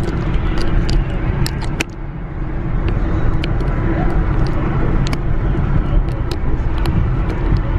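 Car driving, heard from inside the cabin: a steady low rumble of engine and tyre noise, with scattered light clicks and a brief drop in level about two seconds in.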